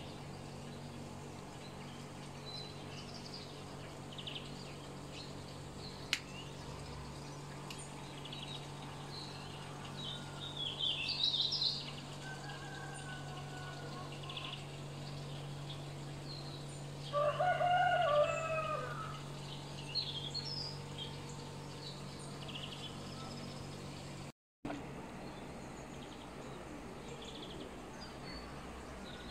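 A rooster crows once, about two thirds of the way through, over scattered small-bird chirps and a faint steady low hum.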